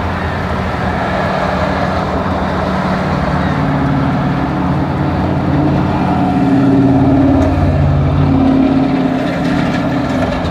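Strong storm wind blowing over open water: a loud, steady rumble with wavering low tones that swells a little partway through, with surf washing against a seawall.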